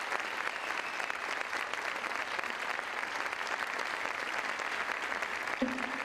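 Sustained applause, many hands clapping at a steady level.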